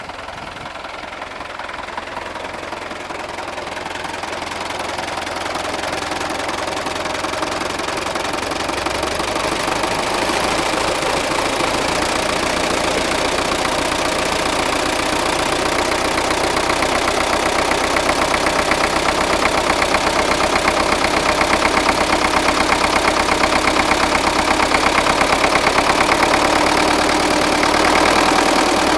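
MTZ-80 tractor's D-240 four-cylinder diesel running with a regular knock in its beat, getting louder over the first ten seconds or so and then holding steady. The knock appeared after the injection pump and injectors were repaired, comes at medium revs, is almost absent when the engine is cold, and did not change when the injection timing was retarded; the owner does not know its cause.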